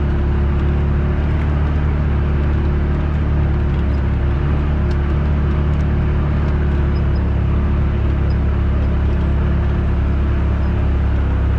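Off-road vehicle engine heard from on board, running at a steady cruising speed: a constant low drone with no revving or gear changes.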